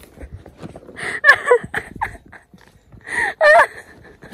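Two short, high-pitched vocal squeals from a hiker, each wavering in pitch, about two seconds apart, over faint scuffing footsteps on a rocky trail.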